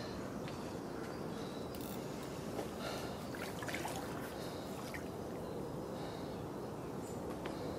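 Quiet lakeside ambience: a steady hiss with a few faint, short chirps now and then.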